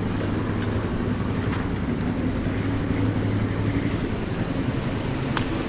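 A steady low mechanical hum under even background noise, with no distinct events.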